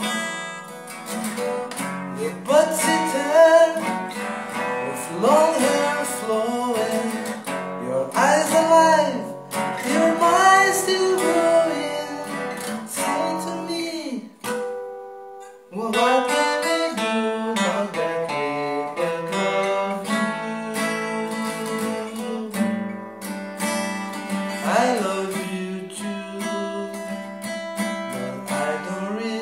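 A man singing to his own acoustic guitar, strumming and picking chords. The playing stops briefly about halfway through, then the guitar picks up again.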